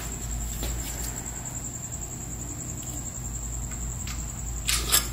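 Light clicks and scrapes of an aluminium clamp plate being handled and set onto its bracket by gloved hands, with a sharper double knock near the end. Crickets trill steadily behind it, over a low hum.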